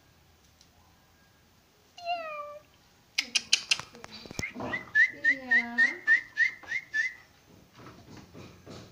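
A domestic cat gives a short, falling meow about two seconds in. After some clicking, a quick run of short, high whistled chirps follows, about four a second, with a low drawn-out sound beneath them.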